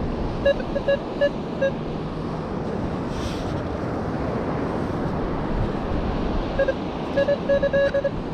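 Minelab metal detector giving short, identical mid-pitched beeps as the search coil is swept over a target: four or five near the start and a quicker run of about eight near the end, a jumpy mid-tone reading. Steady surf and wind noise underneath.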